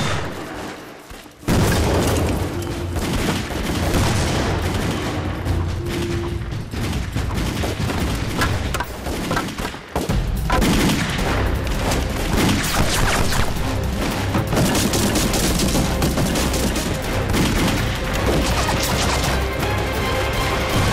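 Battle sound effects: heavy gunfire and explosion booms mixed with background music. The sound drops away briefly about a second in and again around ten seconds.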